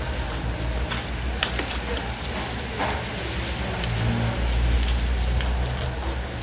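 Close-up eating sounds: crunching and chewing fried chicken and crisp lettuce, many small crackling clicks, over a steady low hum.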